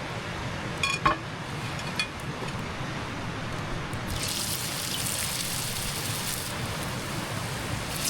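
Bread dough frying in hot oil in a pan over a campfire: a couple of light metal clinks about one and two seconds in, then a loud hissing sizzle starting about halfway through.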